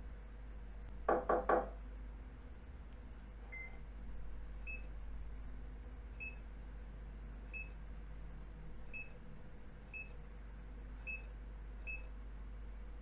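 Three quick knocks on a door, then a digital door lock's keypad beeping as its buttons are pressed one at a time: eight short, high beeps at uneven spacing, roughly one a second.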